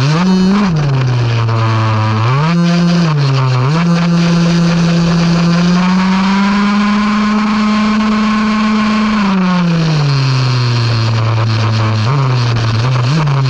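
RC buggy's motor running under changing throttle, its pitch sliding up and down in short bursts and held high for about three seconds in the middle before falling back.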